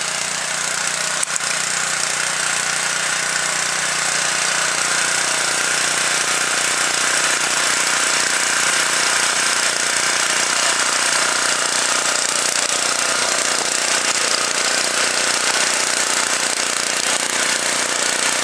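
Small Honda petrol engine of a motorised hoe (trench-digging cultivator) running steadily and loudly as the machine works.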